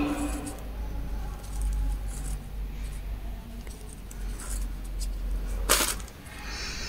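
Crochet hook and yarn being worked through stitches of a round of single crochet, with faint small ticks over a steady low rumble and one sharp click near the end.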